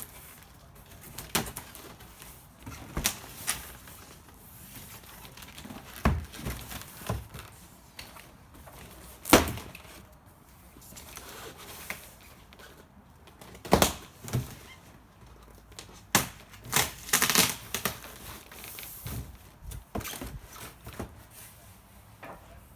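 Packaging being pulled off a wing foil board: irregular crinkling and tearing of wrapping, with occasional sharp knocks and thunks. The loudest knocks come about 9 and 14 seconds in, and there is a burst of handling noise around 16 to 18 seconds.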